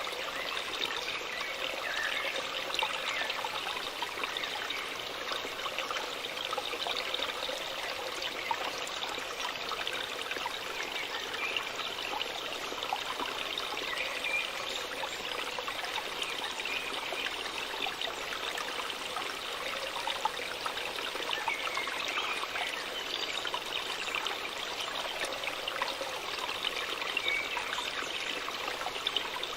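Waterfall splashing steadily: a constant rush of falling water with small trickles and droplet splashes in it.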